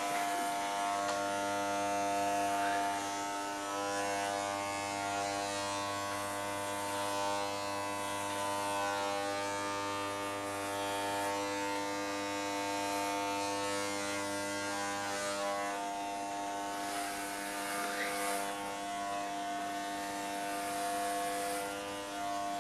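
Corded electric hair clippers buzzing steadily as they shave hair off a man's head.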